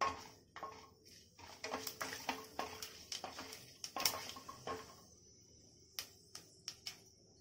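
Wooden spatula knocking and scraping against a pressure cooker pot while whole spices and fennel seeds are stirred in hot oil and ghee, in irregular clicks and knocks for the first few seconds. After that a faint sizzle of the spices frying, with a few light taps.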